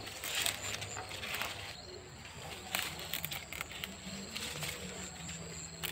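Large leaves rustling and their stalks snapping as they are picked by hand, a string of short irregular crackles.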